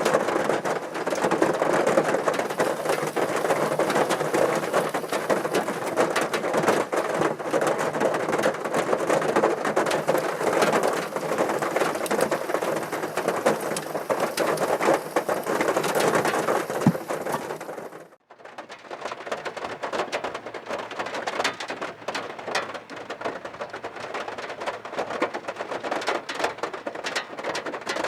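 Heavy typhoon rain falling on a parked car, a dense hiss full of individual drop hits. About two-thirds of the way through it cuts off abruptly and resumes thinner and quieter.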